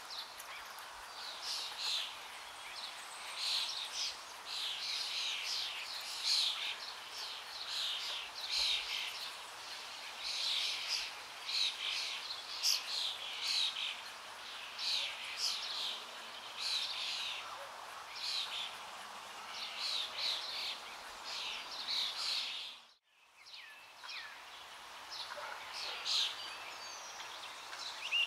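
Birds chirping: many short, quickly falling high chirps repeating over a faint outdoor hiss. The sound drops out for a moment about three-quarters of the way through, then the chirping resumes.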